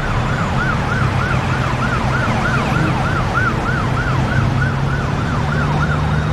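Ambulance siren in a fast yelp, each rise and fall lasting under a third of a second, about three to four sweeps a second, over a steady low vehicle hum.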